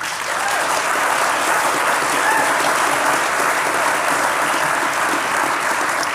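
Congregation applauding steadily, many hands clapping at once.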